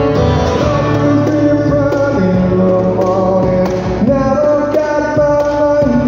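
Live acoustic music: a man sings over a strummed acoustic guitar, with a cajon beating out the rhythm.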